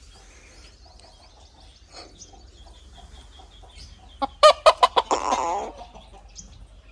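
Snow-white Aseel rooster of the Mianwali strain clucking: about four seconds in, a quick run of about five loud, short clucks that runs into a longer, rougher call.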